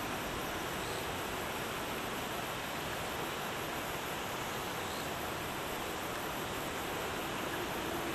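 Steady outdoor background hiss beside a railway line, even and unbroken, with a brighter high hiss layered on top and no distinct events.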